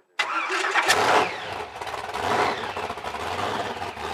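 Supercharged 406 cubic inch Chevrolet small-block V8 with a 6-71 blower starting: a short burst of cranking, then it catches about a second in with a sharp crack. It settles into a steady idle, with a brief rise in revs about two and a half seconds in.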